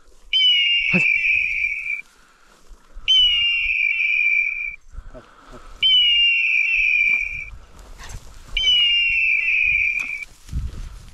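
Pointing dog's electronic beeper collar sounding in point mode: four identical long, high beeps about three seconds apart, each opening with a short downward slide in pitch, signalling that the dog is standing on point over quail. Faint rustling of dry grass underneath.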